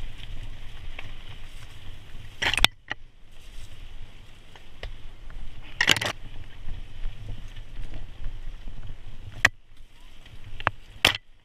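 Mountain bike rolling over rocky dirt singletrack: a steady rumble of tyres and wind, broken by four short sharp rattles as the bike knocks over rocks, the loudest about two and a half and six seconds in.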